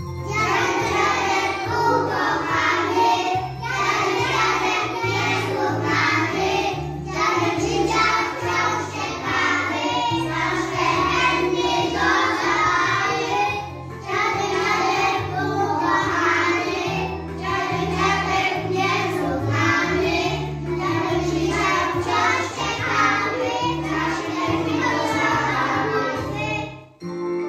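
Young children singing a song together over a recorded backing track with a steady bass line. The music breaks off abruptly near the end.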